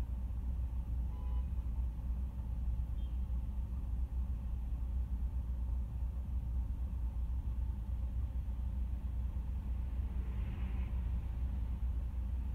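Steady low rumble of a car idling at a standstill, heard from inside the cabin. A brief faint hiss comes near the end.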